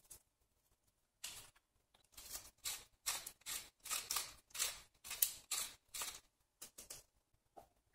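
Wooden pepper mill grinding black peppercorns, a quick series of short grinding twists about two to three a second that stops about seven seconds in.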